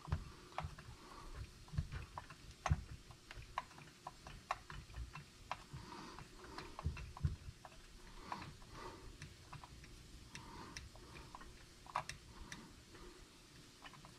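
Faint, irregular clicks and light taps of a T-handle driver working the muffler screws out of a chainsaw, metal tool on screw heads and housing.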